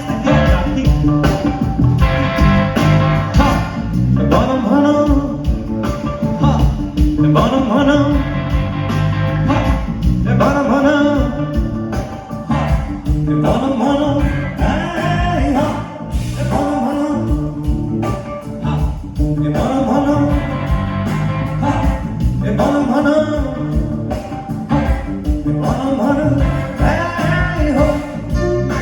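Live band playing a Nepali song, with a steady drum beat and guitar.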